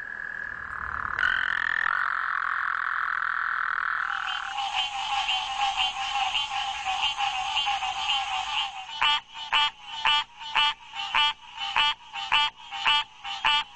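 Frogs calling. A steady trilling chorus fills the first four seconds. It gives way to fast-pulsed calls, which from about nine seconds in become separate croaks, about two a second.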